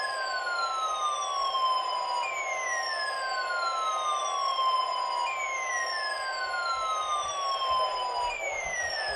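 Weather alert radio alarm: an electronic siren tone sliding down in pitch, repeating about every three seconds, over a steady high alert tone that stops about seven seconds in.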